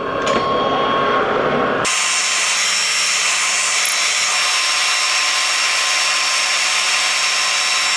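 Metal lathe running. About two seconds in, a counterbore fed into the bore of the turning workpiece starts cutting with a steady, harsh hiss as it squares up the bottom of the drilled hole.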